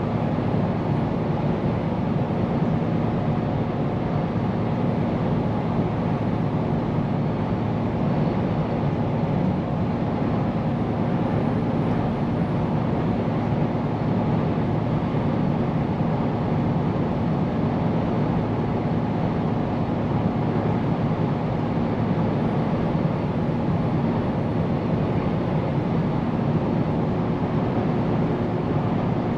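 Scania P410 truck's diesel engine running steadily under way, with tyre and road noise.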